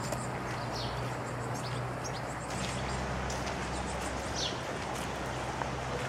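Birds chirping in short, scattered calls, over footsteps crunching on a gravel path and a low steady hum.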